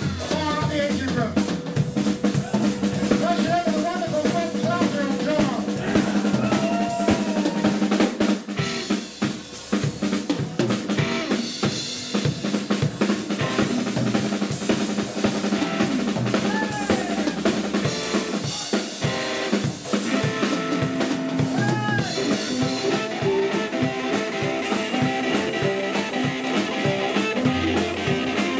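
Live blues band playing an instrumental passage, with no singing. A drum kit is prominent, with snare rimshots and fills, over an upright double bass and a hollow-body electric guitar. Lead notes bend up and down in the first several seconds.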